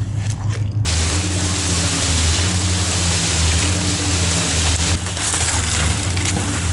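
Heavy diesel engine of concrete-pour equipment running steadily at a slab pour. About a second in, a dense rushing noise comes in abruptly over it.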